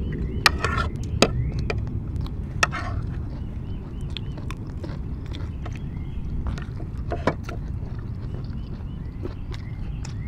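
People eating: chewing and biting food, with scattered sharp clicks and taps of a spoon against dishes, over a steady low outdoor rumble.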